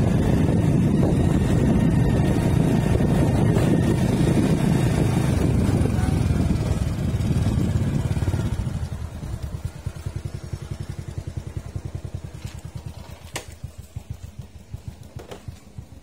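Motorcycle riding with heavy wind and road noise, then slowing about halfway through and settling to an idling engine with a steady, even putter. Two short clicks come in the last few seconds.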